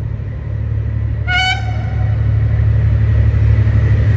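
Approaching Henschel diesel locomotive, its engine rumble growing steadily louder. About a second in it gives one short toot on its horn.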